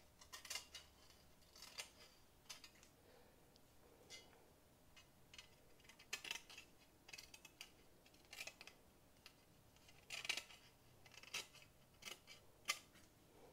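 Scissors snipping through fly netting, trimming the mesh to size: a series of quiet, short snips at irregular intervals, some in quick pairs.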